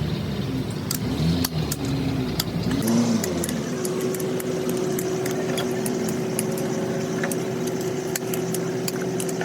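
Workshop noise: repeated metallic clicks and clinks, with a steady machine hum setting in about four seconds in.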